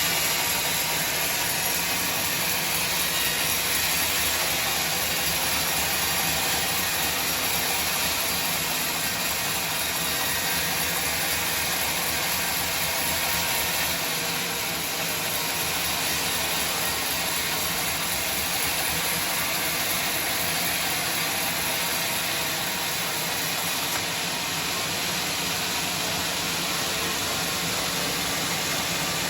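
Sawmill machinery running with a steady mechanical noise that stays at nearly the same level throughout.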